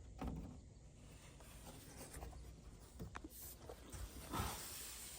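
Greenhouse roof panel being slid into its frame channel: faint scraping and rustling with a few light knocks, the loudest near the start and again about four seconds in.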